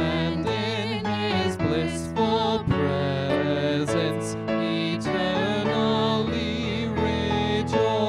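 A man and a woman singing a hymn together into microphones, their voices held with a wavering vibrato, over a digital piano accompaniment.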